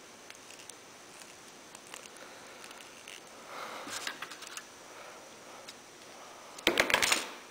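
Faint handling of a roll of electrical tape while the end of a bamboo-skewer pushrod is wrapped, with a few soft ticks. Near the end comes a short clatter of sharp knocks, the tape roll being put down on the wooden workbench.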